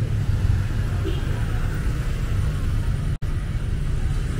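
Busy street traffic: a steady low rumble of engines, broken by a split-second dropout about three seconds in.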